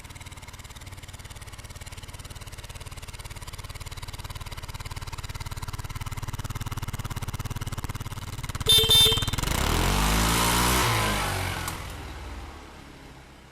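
A motorcycle riding past: its engine grows steadily louder as it approaches, with a brief sharper burst near the middle. The pitch then drops as it goes by, and the sound fades away.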